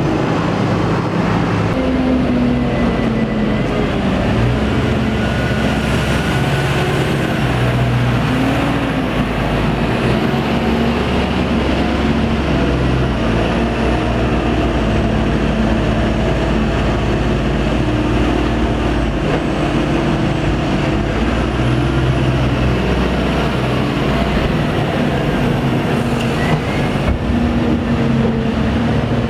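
Tractor diesel engines working a silage clamp: a Valtra T214's six-cylinder diesel runs hard under load as it pushes up grass, its engine note rising and falling. A second tractor with a trailer of grass joins in partway through and tips its load.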